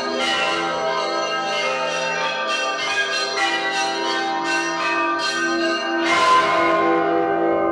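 Several church bells of different pitches ringing together, struck over and over in a quick, uneven pattern so that their long ringing tones overlap, with a strong fresh stroke about six seconds in.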